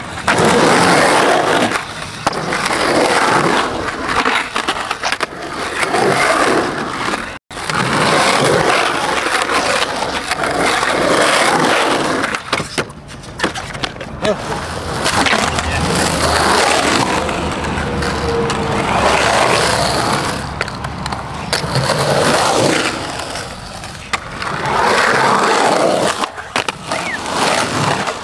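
Skateboard wheels rolling over rough concrete banks, in repeated swells of a few seconds as the skaters ride through, with scattered sharp clacks of the board. The sound cuts out briefly about seven seconds in.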